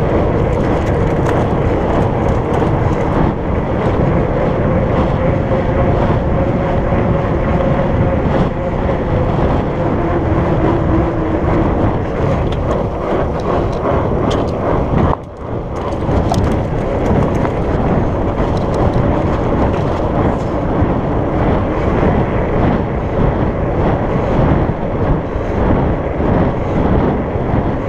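Wind rushing over the microphone with the hum of 4.8-inch Surly Knard fat-bike tires rolling fast on pavement. A faint steady hum sinks slightly in pitch and fades about twelve seconds in, and the noise drops briefly about fifteen seconds in.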